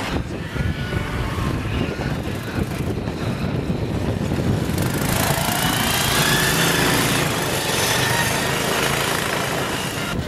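Mini Baja off-road race car's small single-cylinder engine running. About halfway through it revs up, its pitch rising, and it stays high after that.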